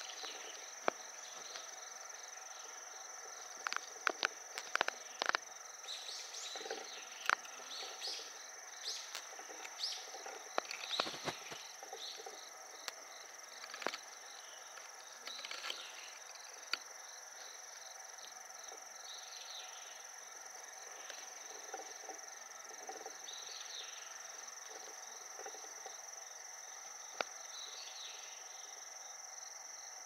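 Autumn insects, crickets or similar, singing in a steady high continuous trill. Scattered short chirps come through the first two-thirds, and a few sharp clicks fall in the first dozen seconds.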